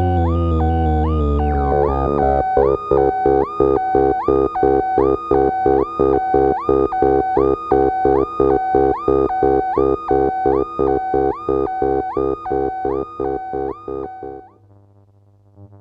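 MFOS Weird Sound Generator analog drone synth playing a pitched drone that turns into an even pulsing pattern about twice a second, with a short rising blip repeating on top. About fourteen seconds in it cuts off, leaving only a faint low hum.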